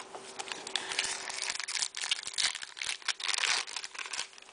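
Trading-card pack wrapper crinkling and tearing as it is opened, a busy run of crackling rustles, over a faint steady hum.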